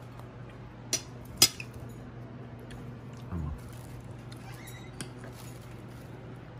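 Metal spoon and fork clinking against a ceramic dinner plate while eating: two sharp clinks about half a second apart near the start, the second the loudest, and a fainter one later. A low steady hum runs underneath.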